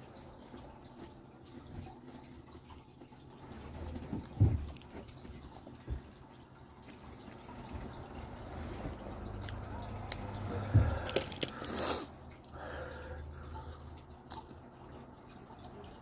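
Handling noises: small clicks throughout, two sharp dull thumps about four and eleven seconds in, and a short rustle just after the second thump.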